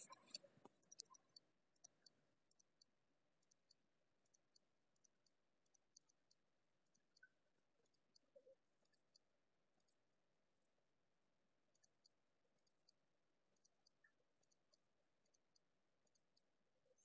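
Near silence, with faint high-pitched ticks scattered irregularly through it.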